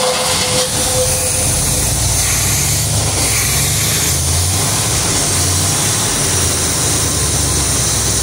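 1973 Corvette Stingray's Chevrolet V8 running steadily just after starting, heard loud and close at the open engine bay: a low rumble with a hiss over it.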